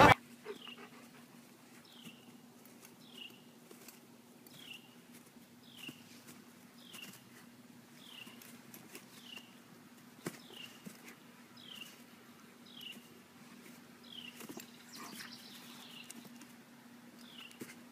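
A short, high, falling chirp repeated evenly, a little less than once a second, over a faint steady hum, with a few soft knocks.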